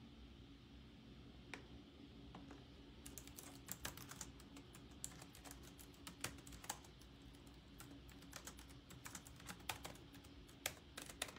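A run of light, irregular clicks and taps close by, starting about three seconds in and going on until the end, over a faint steady hum.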